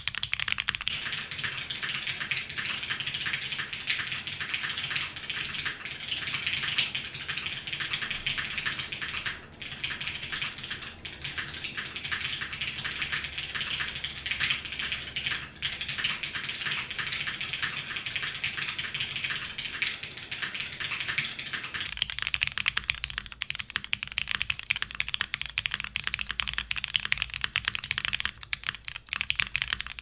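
Continuous typing on a custom mechanical keyboard: DN Ryujin case, polycarbonate plate, MX Brown tactile switches lubed with 205g0, DCS white-on-black keycaps and TX stabilizers. Rapid, dense keystrokes with two brief pauses, at about nine and fifteen seconds in.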